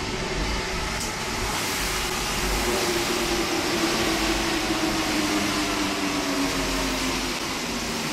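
Rubber-tyred, driverless Paris Metro Line 1 train pulling into the station and slowing, its motor whine falling steadily in pitch as it decelerates.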